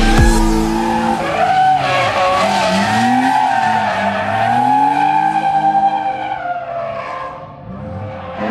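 BMW E36 drifting: its engine is held high in the revs, rising and falling in pitch, while the rear tyres squeal as the car slides sideways. The sound fades as the car moves off, about seven seconds in, then comes up again near the end.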